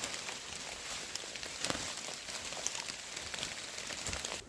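Steady rain falling, an even hiss with many scattered drop ticks.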